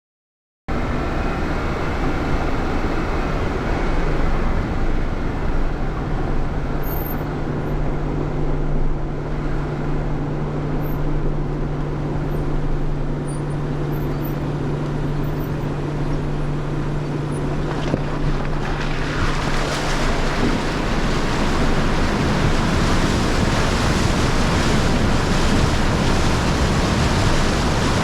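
Off-road vehicle fording a river, its engine running with a steady hum under the rush and splash of water. About two-thirds of the way in, the water noise grows louder and brighter and covers the engine.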